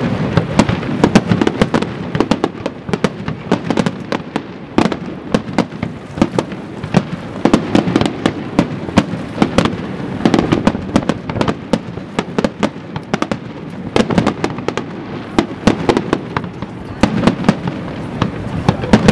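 Aerial fireworks display: a continuous run of sharp cracks and pops from bursting shells, several a second, over a low rumble of heavier booms.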